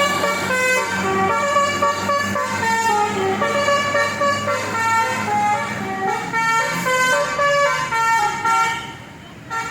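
A bus's basuri telolet horn, a multi-tone musical air horn, playing a quick melody of stepped notes over a low, steady engine hum. The horn tune breaks off briefly about nine seconds in.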